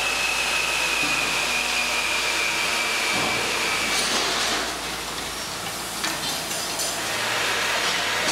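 Steady hissing workshop noise in a metal-plating shop, with a faint high whine that drifts slightly lower and stops about four seconds in. A few light metal clinks about six to seven seconds in.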